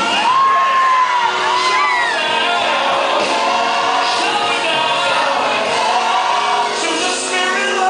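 Church worship music: singing voices over steady held chords, with shouts and whoops from the congregation.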